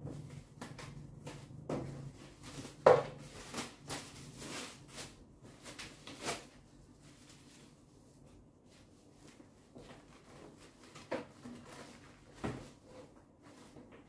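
Scattered knocks and clunks of objects being handled and set down, the loudest about three seconds in, with a faint low hum in the first couple of seconds.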